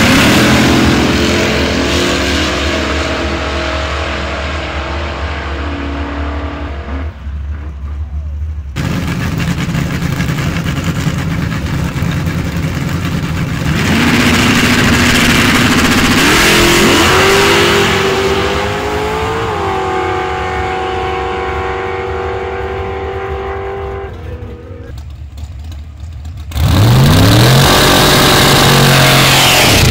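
Drag racing cars accelerating hard down the strip, their engines revving up through gear changes and fading as they pull away. The sound cuts abruptly between passes, and near the end a new run starts loudly with the engine pitch climbing.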